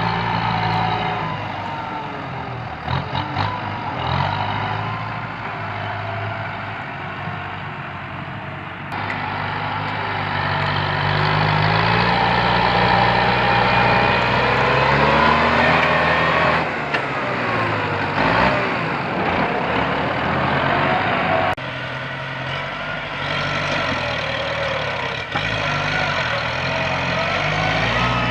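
Bulldozer's diesel engine running under load, its revs rising and falling, with several abrupt changes in the sound.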